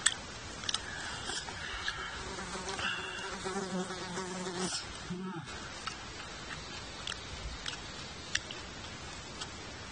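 A flying insect buzzes close by for a few seconds in the middle, with a few light clicks of chopsticks against a metal cup as noodles are eaten.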